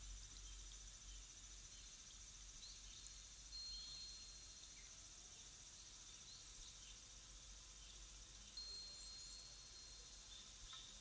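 Faint background nature soundscape: small birds chirping with short high calls, twice holding a long steady whistled note, over a constant high insect-like hiss.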